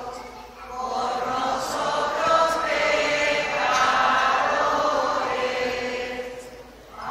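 A group of voices singing a slow hymn in unison with long held notes. The singing dips between phrases about half a second in and again near the end.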